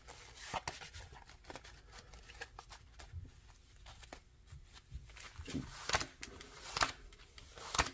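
Pokémon trading cards being handled and flipped through by gloved hands: soft, scattered clicks and rustles of card stock sliding against card stock, a few sharper ones near the end.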